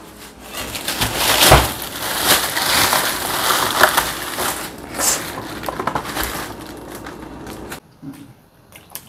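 Crunching and crackling of food being bitten and chewed, a dense run of small cracks that cuts off suddenly near the end.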